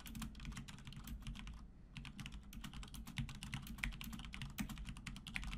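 Fast typing on a computer keyboard: a dense run of key clicks, with a short pause about two seconds in.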